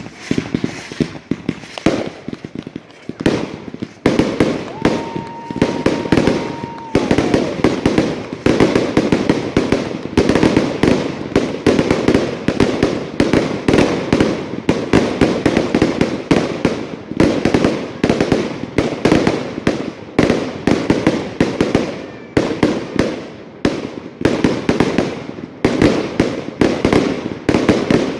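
Fireworks going off in a dense, rapid crackle of bangs, many a second, like a long string of firecrackers. About five seconds in, a steady whistle sounds for about two seconds and then falls away.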